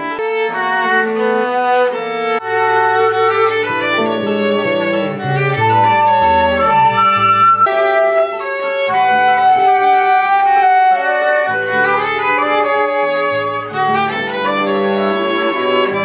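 A small band playing: a violin and a cello bowing sustained melody notes over a bass line.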